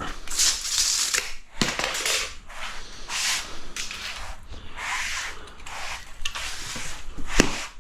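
Stanley knife scoring a fibre cement sheet: a series of scraping strokes, about one a second, with a sharp knock near the end. This is the score line before the sheet is snapped off.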